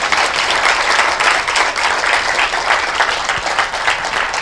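Lecture audience applauding: dense, steady clapping from many hands that begins to thin out near the end.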